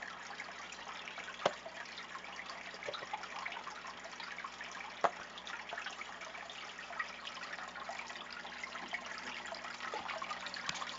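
Aquarium water trickling and bubbling steadily over a faint low hum, with two sharp clicks, about one and a half and five seconds in.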